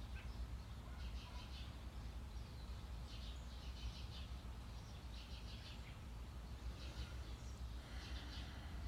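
Small birds chirping in short, rapid high-pitched bursts that repeat every second or two, over a steady low rumble of background noise.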